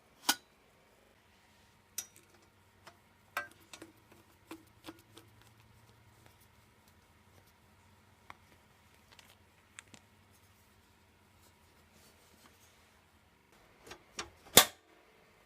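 Scattered sharp clicks and metallic knocks as a 3.5-inch hard drive is slid into a computer case's metal drive cage and screwed in, over a faint low hum; one sharp knock comes just after the start and the loudest near the end.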